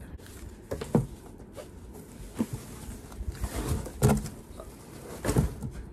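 Hands rummaging through items in a cardboard box: scattered knocks and thumps, with a short rustle of packaging in the middle.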